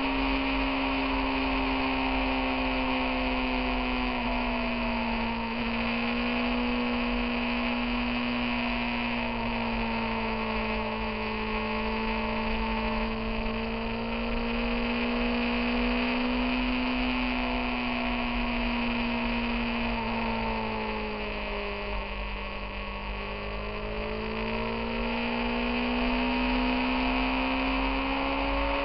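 Motorcycle engine running at road speed, a steady drone whose pitch drifts gently up and down with the throttle. The pitch falls for a few seconds about three-quarters of the way through, then climbs again.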